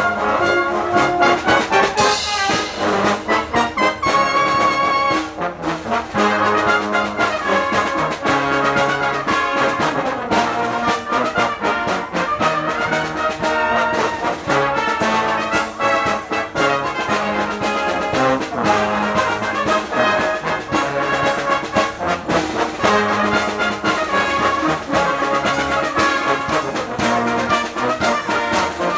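A brass band playing a pop or rock arrangement, trumpets and trombones over a steady beat.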